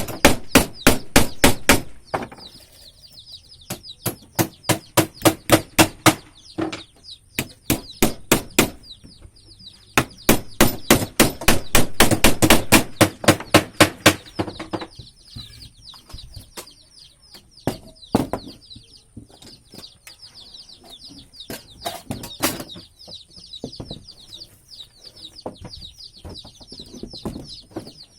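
A hammer striking in fast runs of blows, about four or five a second, with pauses between the runs and a few single knocks later on. Birds chirp faintly throughout.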